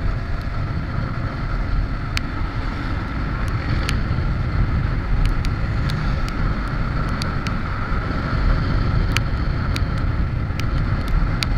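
Motorcycle engine running steadily at cruising speed, with a dense rumble of wind and road noise and scattered sharp ticks.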